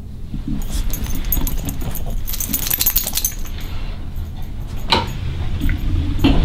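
Small metal tags on a Cavalier King Charles Spaniel's collar jingling as the dog moves, most clearly about two to three seconds in. Two short sharp sounds follow near the end.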